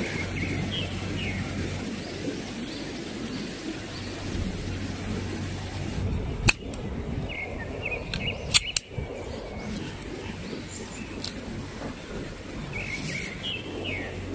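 Birds chirping over a steady rush of stream water. A sharp click comes about six and a half seconds in, then a quick few more about two seconds later, as tent-pole sections are snapped together.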